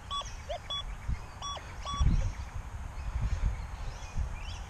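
XP Deus II metal detector giving short beeps of one steady pitch, about four of them in the first two seconds, as its coil is swept over metal targets, over a low background rumble.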